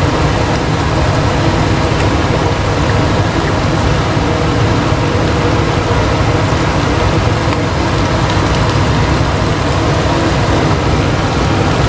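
Minced beef sizzling steadily in a hot pan, just after sweet soy sauce has been added.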